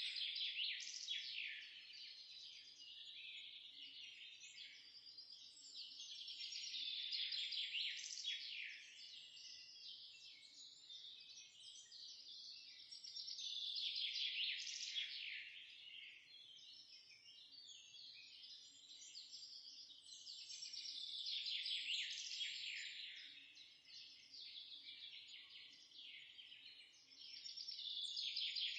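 A dense chorus of many small birds chirping and twittering together, swelling louder and fading back about every seven seconds.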